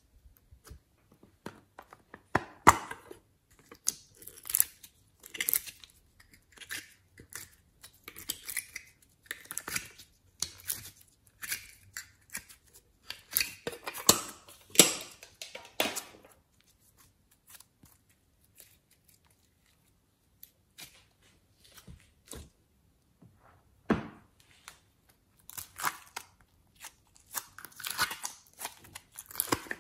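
Sticky slime and clay being stretched, squeezed and peeled out of plastic moulds by hand. It makes irregular clusters of sticky crackles and pops, and thins out to a few scattered clicks in the middle.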